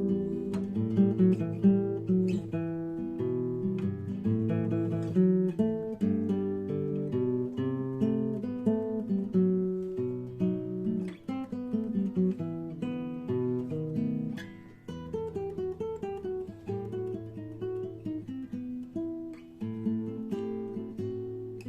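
Acoustic guitar playing an instrumental passage of picked notes and strummed chords, with a brief dip about two-thirds of the way through before it carries on.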